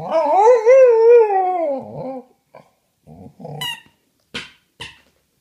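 A pet dog giving one long, wavering howl-like whine of about two seconds, followed by a few shorter, quieter whimpers and two brief sharp sounds near the end.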